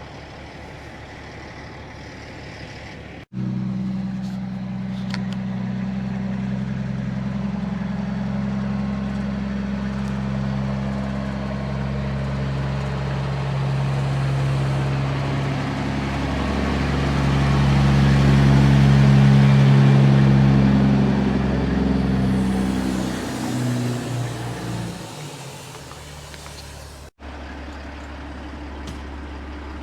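Heavy truck's diesel engine running, growing louder to a peak about two-thirds of the way through and then fading away, as if driving past. The sound jumps abruptly at about three seconds and again near the end, where it drops back to a quieter steady engine hum.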